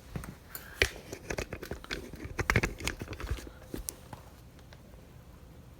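A string of light clicks, taps and knocks, with some crinkly rustling, from parts and tools being handled on a partly dismantled chainsaw. The sounds come irregularly for about four seconds and then stop.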